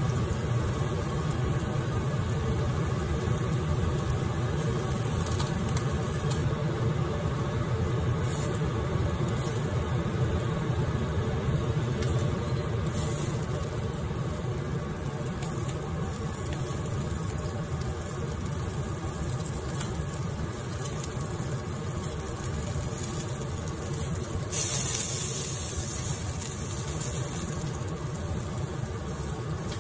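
Chicken wings grilling in a wire basket over an open gas flame: a steady low rumble with faint sizzling crackles, and a brief louder hiss about 25 seconds in.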